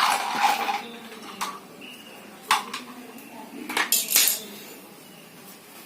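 Hard parts or tools being handled during washing machine reassembly: a short rattling clatter at the start, then a few sharp clinks and knocks spread over the next few seconds.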